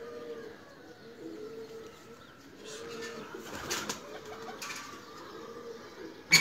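Domestic pigeons cooing over and over, with some rustling and wing-flapping in the middle and one sharp knock right at the end.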